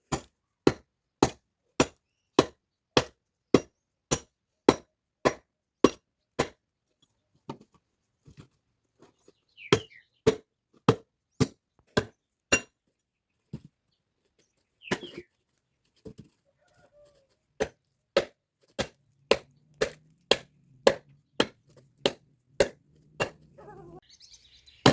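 Firewood being chopped by hand: quick, regular blows on wood about two a second, which break off into a few scattered strikes for about ten seconds midway, then pick up the same steady rhythm again.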